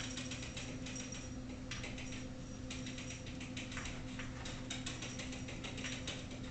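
Kittens' claws scrabbling and catching on a carpeted climbing wall as they climb: a run of quick scratchy ticks over a steady low hum.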